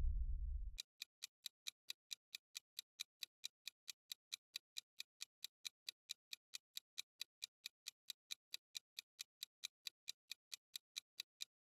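The tail of a deep booming hit dies away over the first second. Then a clock-ticking sound effect runs at about four even ticks a second and stops just before the end.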